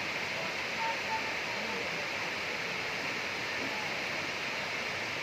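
Steady rushing of a waterfall, with faint distant voices in the background.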